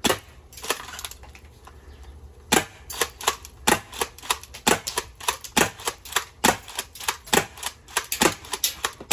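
An airsoft gun firing: a couple of single sharp snaps near the start, then from about two and a half seconds in a fast run of shots, two to three a second.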